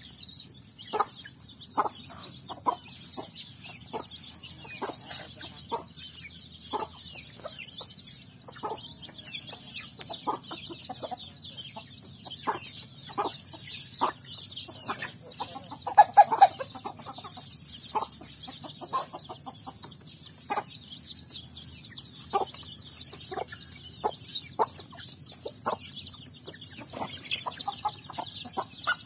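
Domestic chickens: a flock of chicks peeping constantly with short, quick calls, while a hen clucks softly among them in short, spaced clucks, with a louder run of clucking about sixteen seconds in.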